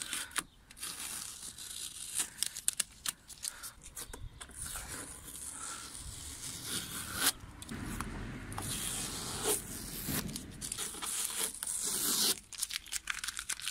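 Paper masking tape being peeled off a car's plastic bumper trim strip: a run of crackling rips and short tears, densest and loudest in the second half.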